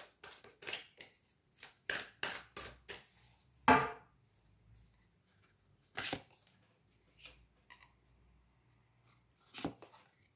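Tarot cards being shuffled by hand and dealt from a Darkwood Tarot deck. A quick run of sharp card snaps over the first four seconds, then a few single snaps spaced out as cards are drawn and laid down.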